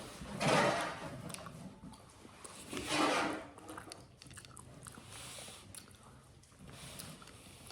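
Close-miked eating: a woman biting into and chewing a mouthful of cheesy enchilada, with wet mouth sounds. There are two louder bursts, about half a second in and about three seconds in, and small smacks and clicks in between.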